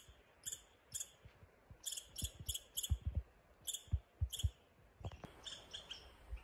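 Red squirrels calling: a series of short, sharp, high chirps at uneven intervals, with a few soft low thumps in between.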